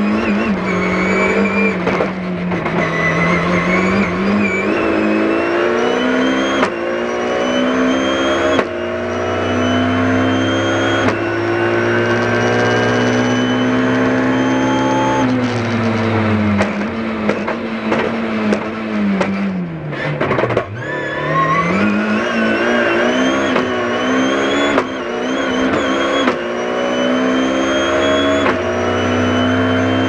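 BMW rally car's engine heard from inside the cockpit, pulling hard through the gears: pitch climbs and then breaks at each quick upshift. About twenty seconds in the revs fall steeply as the car slows, then climb again through further upshifts.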